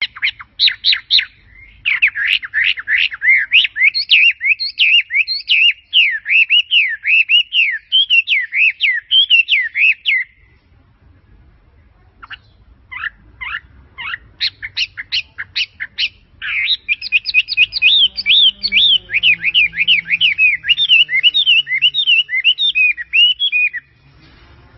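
A songbird singing long runs of rapid twittering notes that swoop up and down in pitch. A few seconds after the midpoint the song breaks off into separate short chirps, then resumes in another long run that stops abruptly near the end.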